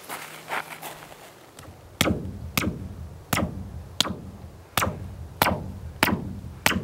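A hand tapping a rusted steel sculpture plate, eight sharp knocks about one and a half a second starting about two seconds in, each ringing with a low, hollow tone as the steel resonates.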